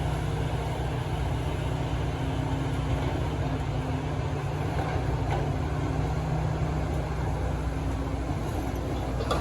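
Log truck's diesel engine running steadily at low revs, an even low hum.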